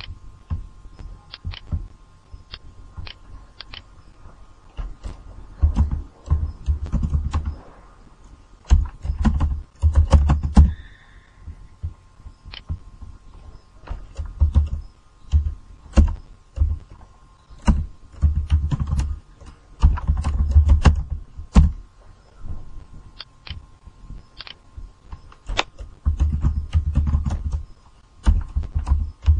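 Typing on a computer keyboard and clicking a mouse: irregular bursts of sharp key clicks with dull thumps, over a faint steady tone.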